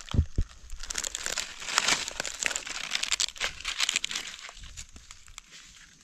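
Dry fallen leaves crackling and rustling under gloved hands while a small knife scrapes soil off a freshly pulled mushroom's stem base. Two dull bumps at the very start, then dense crackling that thins out after about four seconds.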